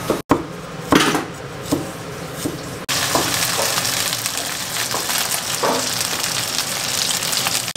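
A few separate knocks, then from about three seconds in, chicken wings sizzling steadily in hot oil in a frying pan, with occasional light knocks as they are turned with chopsticks.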